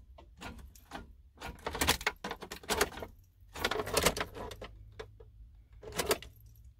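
Keys jangling and clicking in the ignition lock of a Kia as the key is worked, in several short rattles. The ignition has been playing up.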